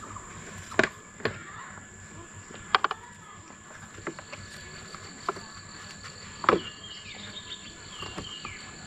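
A few sharp clicks and taps as a metal clamp strip is handled and pressed against a scooter's front fork and plastic mudguard, the loudest about six and a half seconds in. Under them, a steady high-pitched insect buzz.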